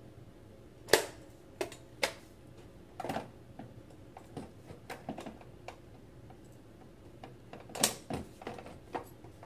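Hard plastic baby-swing parts clicking and knocking as they are handled and pressed onto the frame: irregular sharp clicks, loudest about a second in and again near eight seconds, with smaller ticks between.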